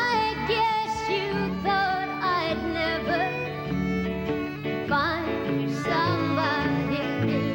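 Country band playing, a fiddle carrying a bending melody over guitar and a steady bass line.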